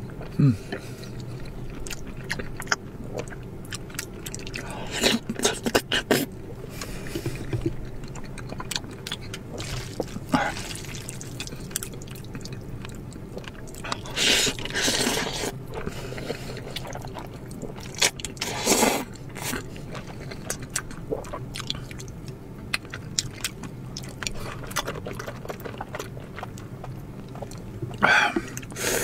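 Close-miked eating sounds: chewing, with several loud slurps of zhajiang (black bean sauce) noodles. The longest slurp comes about halfway through.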